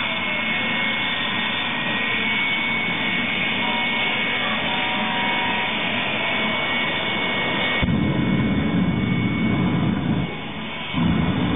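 Jet engine of a jet-powered fire truck running with a steady whine under a loud rush. About eight seconds in it gets louder with a deep rumble, which drops away after about two seconds and returns briefly near the end as the flame blasts out.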